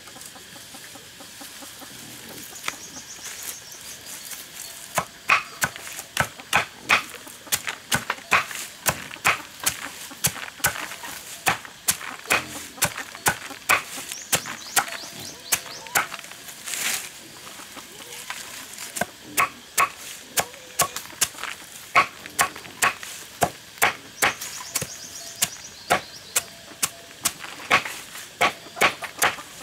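Cleaver chopping leafy greens on a wooden cutting board: sharp, regular knocks about two to three a second, starting about five seconds in, with a brief pause near the middle.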